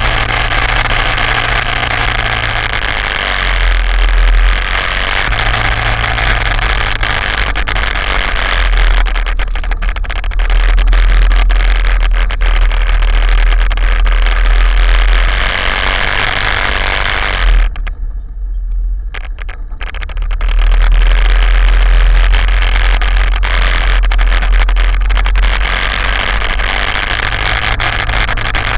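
Quad bike engine running as it rides a rough, muddy track, a steady low drone with a wash of noise over it that swells several times; about two-thirds of the way in the sound drops away for a couple of seconds, then comes back up.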